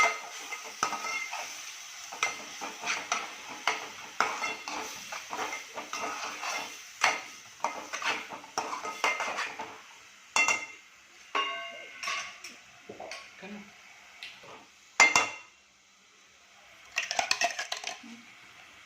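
A spoon stirring and scraping masala paste frying in oil in a pan, clinking against the pan over and over, with some sizzling. The stirring thins out about halfway, with a single loud knock on the pan and then a quick run of taps near the end.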